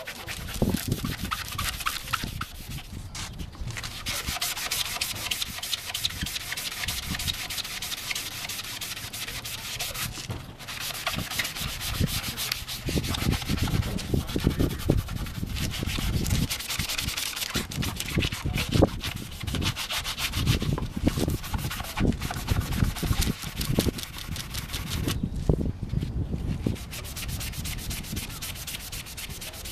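Sanding block scrubbed rapidly back and forth across a cloudy plastic headlight lens, dry-sanding off the UV-damaged, yellowed outer layer. There are a few short breaks in the strokes.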